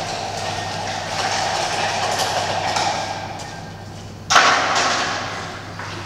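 Water being stirred and poured, a steady rushing, bubbling noise, then a sudden loud splash about four seconds in that dies away over a second or so, echoing in a large hard-walled hall.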